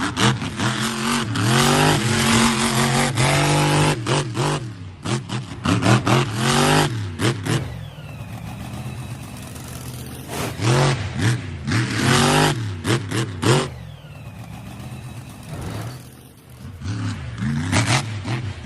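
RC monster truck's motor revving up and down in repeated bursts as it drives, with clattering from the truck, and quieter stretches between the runs.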